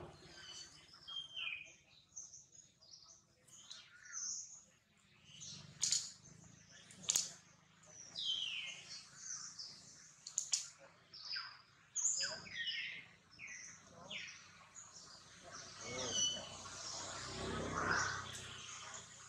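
Many short, high-pitched animal chirps and squeaks, many of them falling in pitch, with a few sharp clicks about six and seven seconds in.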